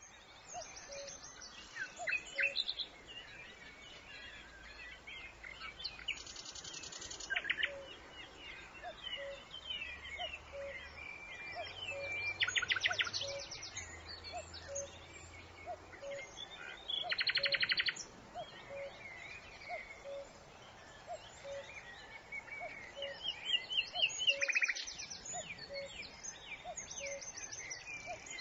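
Several songbirds singing and chirping together, with fast trills bursting out a few times, over a short low note repeated about once a second.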